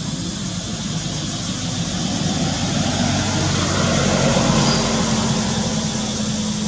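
Engine noise of a passing motor vehicle: a steady low drone over a broad hiss, growing louder to a peak about four seconds in, then easing off.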